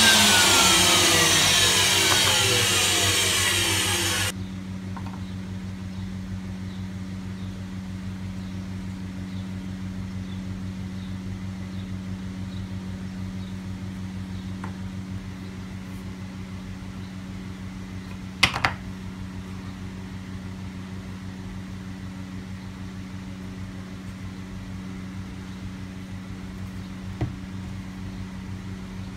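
Table saw motor and blade spinning down after switch-off, the whine falling steadily in pitch until it cuts off about four seconds in. After that a steady low hum runs on, broken by a sharp knock a little past halfway and a smaller one near the end.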